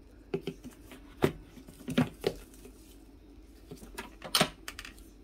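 Several sharp plastic clicks and knocks as the lid of a food processor is fitted onto its bowl and pressed into place.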